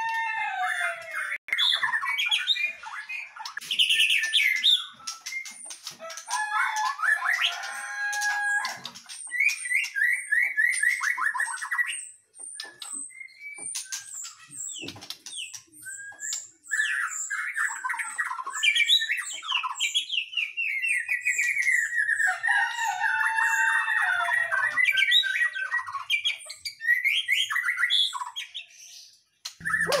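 Caged songbirds singing: a loud, varied stream of whistles, rapid trills and chattering phrases, broken by a few short pauses.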